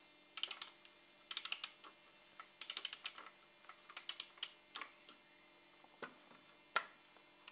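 Key-wound music box being wound: faint ratchet clicks in a series of short runs, about seven twists of the key, the last ones only single clicks.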